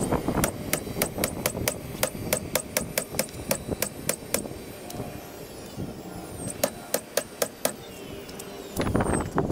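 Nail gun firing nails into a plywood panel: a quick run of sharp shots, about four a second, then a pause and a shorter run of about five more shots. A louder, noisier sound comes in near the end.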